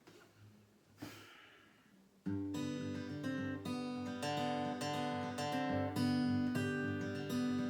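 Acoustic guitar strumming the introduction of a song, starting suddenly about two seconds in after a few faint rustles.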